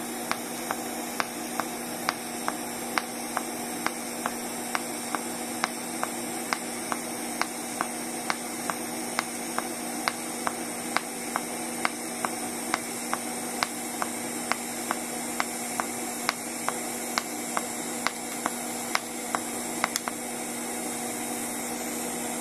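Pulsed TIG welding arc from a Migatronic PI200 inverter: a steady electrical buzz with a sharp tick about twice a second as the current pulses between high and low amps. The ticks stop about 20 seconds in while the buzz continues.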